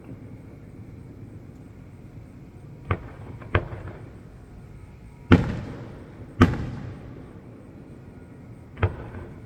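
Aerial fireworks shells bursting: five sharp booms, the two loudest a little over a second apart midway, each trailing off in a rolling rumble.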